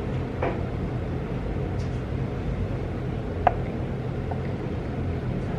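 Steady low background hum, with a soft knock about half a second in and a short sharp clink about three and a half seconds in, as a clay teapot is handled and set down among glass teaware on a wooden table.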